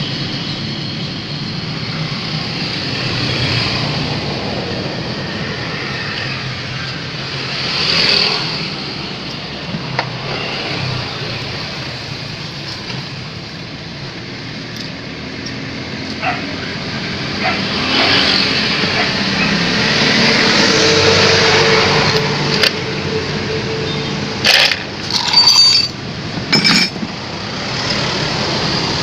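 Steady background traffic noise with vehicles passing, then a cluster of sharp metallic clinks and knocks of tools on metal about three-quarters of the way through.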